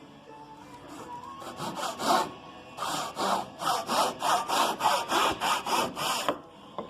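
Hand saw cutting through wood: a few strokes, then a steady run of about ten quick back-and-forth strokes, roughly three a second, that stops near the end. It is making an angled cut for a half-lap corner joint.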